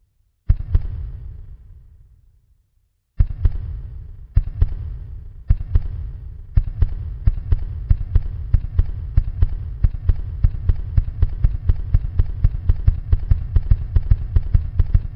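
Heavy booming hits, each ringing out as it fades. They come a second or more apart at first and then faster and faster, until from about six seconds in they run together into a rapid pounding of roughly five hits a second.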